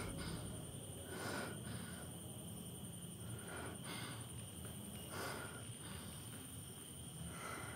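A woman crying quietly: short sniffles and shaky breaths come every second or two, over a faint steady high-pitched hum.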